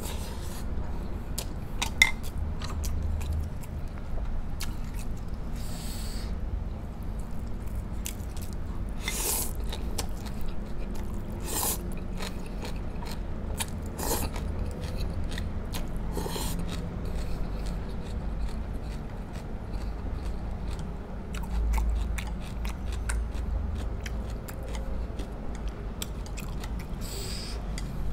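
Close-miked chewing and biting of coconut-braised pork ribs and rice, with scattered clicks and one sharp click about two seconds in.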